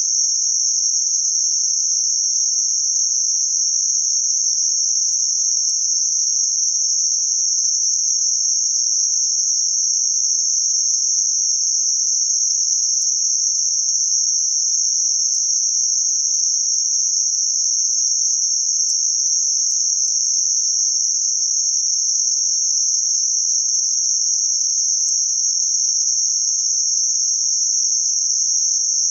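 Synthetic noise filtered to a narrow band around 6051 Hz, a steady high-pitched hiss at an unchanging level.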